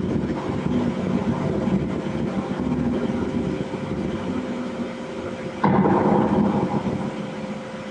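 Trailer sound design under the end title cards: a low, rumbling drone with a steady held tone, a sudden loud hit about five and a half seconds in, then fading away.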